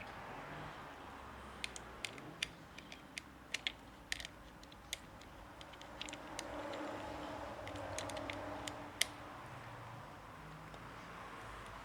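Scattered, irregular light clicks and taps of a hand-turned socket and small screws against metal, as the screws holding a car seat gearbox are taken out. A faint hum swells in the middle and fades.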